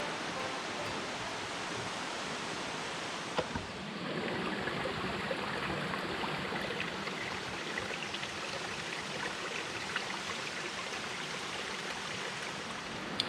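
Mountain river flowing: a steady, even rush of water. A short knock sounds about three and a half seconds in.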